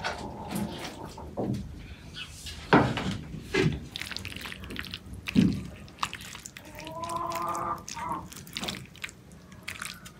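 Wooden spoon scraping and stirring a moist cooked chicken and mushroom mixture in a pan: soft wet stirring with a few sharp knocks of the spoon against the pan in the first half.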